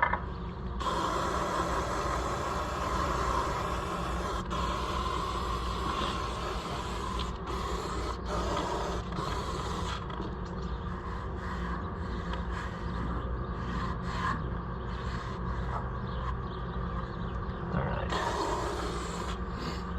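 Aerosol spray can hissing in long bursts, with a few short breaks, as cleaner is sprayed onto the tractor's wheel hub.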